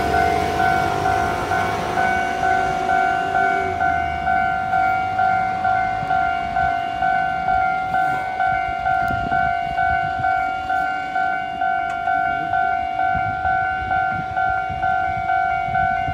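Level-crossing warning bell ringing an even, repeating ding, about one and a half strikes a second. Under it a passing train rumbles, fading out about four seconds in.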